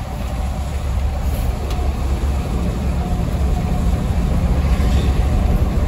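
Mercedes-Benz 1626 coach on the road: a steady low engine drone mixed with road and tyre noise.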